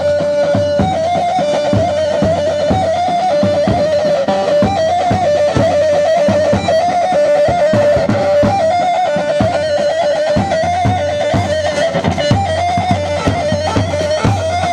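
Kurdish halay dance music: a single ornamented melody line on an amplified plucked-string-sounding instrument over a steady drum beat, opening on a held note.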